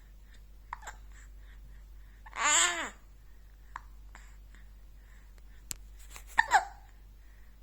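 A baby's short sharp catches in the breath, hiccup-like, with one longer vocal sound whose pitch rises and falls about two and a half seconds in. Two quick, loud catches come close together near the end. The parents can't tell whether these are hiccups or the baby straining to poo.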